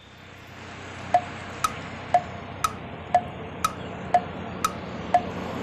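Tick-tock sound effect from the edit: sharp chiming ticks about two a second, alternating between a lower and a higher note, starting about a second in over a steady hiss.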